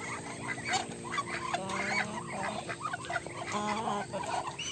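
A flock of backyard poultry calling, many short overlapping calls one after another with no break.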